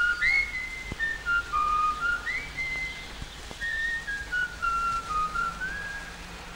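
Soundtrack music: a high melody of short, pure single tones that step from pitch to pitch, a few of them sliding upward, over a faint low held tone.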